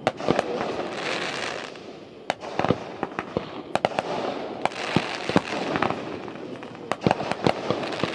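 Aerial fireworks display: a rapid, irregular run of sharp bangs as shells launch and burst, with a hiss between them.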